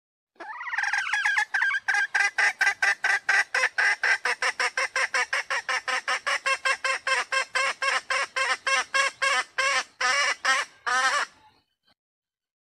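Female red junglefowl calling: a wavering drawn-out opening note, then a long rapid run of short clucks, about five a second, that stops about eleven seconds in.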